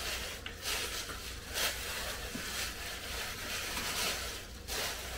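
Wrapping paper rustling and crinkling in several short, brief spells as a present is unwrapped by hand.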